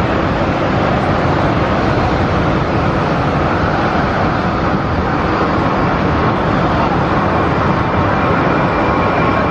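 Boeing 737's twin jet engines at takeoff thrust during the takeoff roll and rotation: a loud, steady rumble and hiss.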